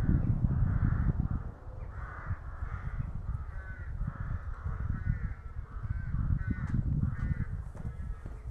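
Crows cawing repeatedly in a string of short harsh calls, over a low rumble that is loudest in the first second or so.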